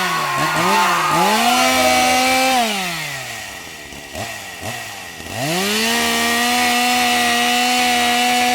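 Chainsaw engine revved hard, dipping twice, then dropping away about three seconds in. It is revved up again about two seconds later and held at high speed.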